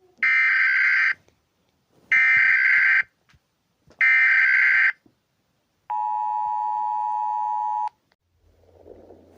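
US Emergency Alert System alert tones: three bursts of SAME header data, each just under a second long and about a second apart, then about two seconds of the steady two-tone attention signal.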